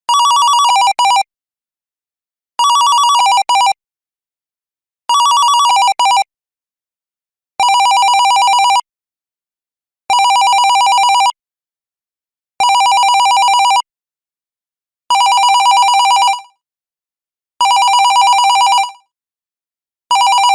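Smartphone ringtone: a two-tone trill warbling rapidly between two pitches, in rings about a second long that repeat every two and a half seconds.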